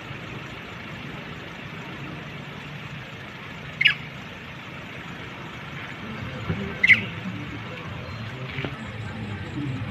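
Two short, high-pitched monkey squeals about three seconds apart, over a steady low rumble.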